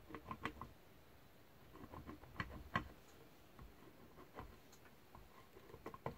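Faint, scattered clicks and light taps from squeezing a plastic bottle of wood glue into the finger joints of a wooden bee box side and handling the board.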